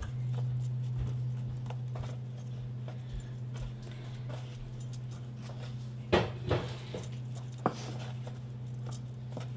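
Hands patting and working a small ball of dough on a floured wooden board, with soft taps and rubs and a few sharper knocks around six to eight seconds in. A steady low hum starts at the beginning and runs under it.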